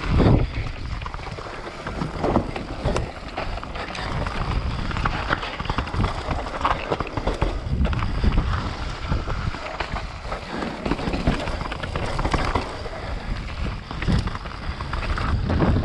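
Enduro mountain bike riding down a rough dirt singletrack: tyres running over roots, rocks and dirt, with a constant rattle of clicks and knocks from the bike and wind buffeting the microphone.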